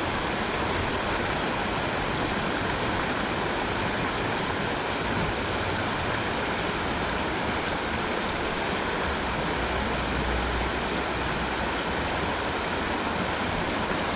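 Creek water running over shallow riffles: a steady, even rushing with no breaks.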